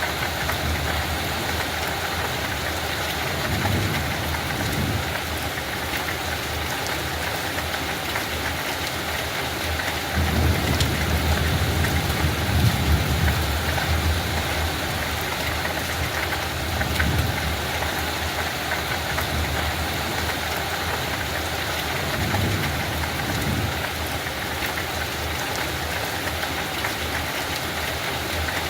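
Light rain falling in a steady, even hiss, with low rumbles swelling and fading every few seconds.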